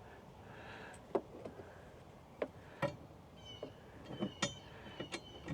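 Light clicks and knocks of a screw and metal TV mounting bracket being handled and fitted, a handful of sharp taps spread through, with a few short high-pitched squeaks in the second half.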